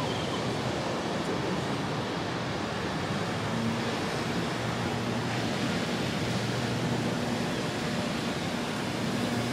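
Steady rush of ocean surf and wind. About three and a half seconds in, a low, steady engine hum comes in and carries on underneath.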